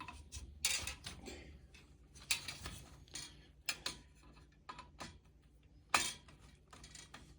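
Light metallic clicks and clinks of a tool working the screws and washers of a metal planter frame as the middle screws are tightened, irregular, with a few sharper knocks spread through.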